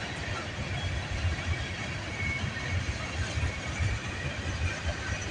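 Freight train cars (tank cars and boxcars) rolling past: a steady rumble and clatter of wheels on rail.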